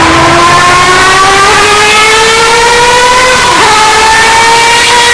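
Historic Formula 1 race car engine accelerating, its pitch climbing steadily for about three and a half seconds, then dipping slightly and holding. The recording is boosted to a very loud, distorted level.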